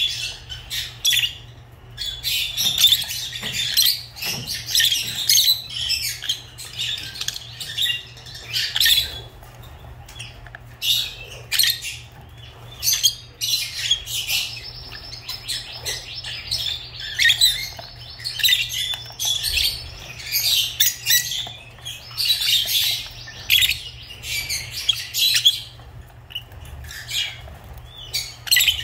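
Lovebirds chirping and squawking in quick, shrill bursts, over and over with short pauses between the bursts.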